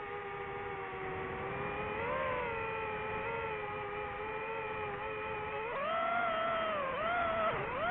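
DJI FPV drone's motors and propellers whining, the pitch shifting with the throttle: steady at first, rising about six seconds in, then dipping and climbing sharply near the end.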